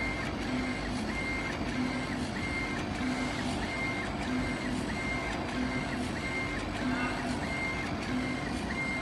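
Leapion CO2 laser engraver raster-engraving stone: the laser head's stepper motors whine as the head sweeps back and forth, the pitch switching in an even rhythm about once a second with each pass, over a steady rushing noise.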